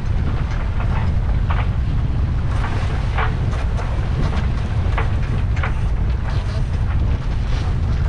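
Strong wind buffeting the microphone in a steady low rumble, over the rush and irregular splashes of a sailing yacht's bow wave along the hull.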